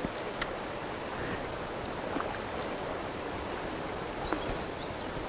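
Steady rush of a flowing river's current, with a few faint ticks.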